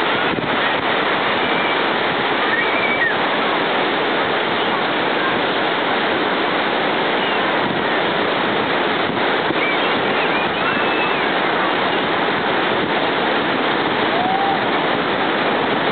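Ocean surf breaking and washing on the beach in a steady rush, with scattered voices from the crowd in the background.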